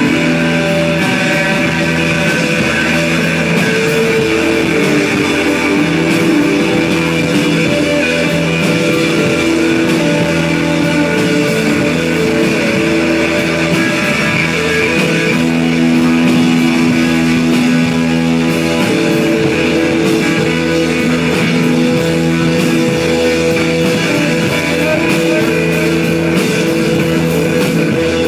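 Live psychedelic rock band playing loud: electric guitar over a drum kit in a steady groove, with long held notes droning.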